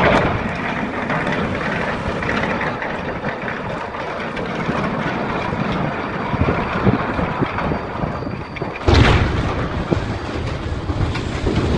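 Storm at sea: loud, steady rushing of wind and water. A heavy, crash-like burst comes about nine seconds in.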